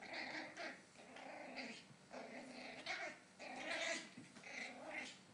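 Maltese puppy growling in a string of about eight short bursts, each around half a second long.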